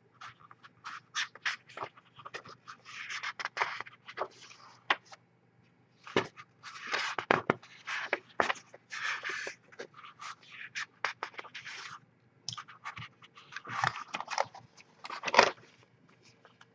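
Things being handled on a table: irregular scraping, rustling and clicking, with louder clusters about seven seconds in and near the end.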